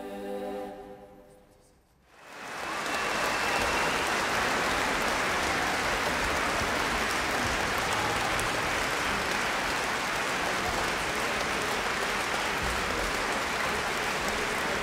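The song's final held chord dies away within the first second, then after a brief hush an audience breaks into applause about two seconds in and keeps clapping steadily.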